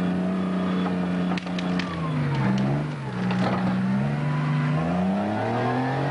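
A motor's steady drone whose pitch dips and climbs back twice midway, with a few sharp clicks about a second and a half in.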